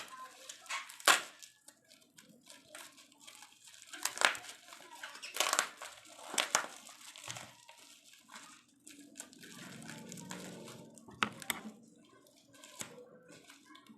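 Wrapping crinkling and tearing by hand in a handful of short, sharp bursts as a package is opened.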